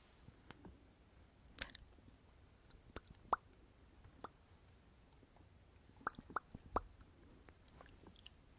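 Close-miked mouth sounds: short lip smacks and tongue clicks from lips freshly coated in lipstick, scattered singly a second or more apart, with three in quick succession about six seconds in.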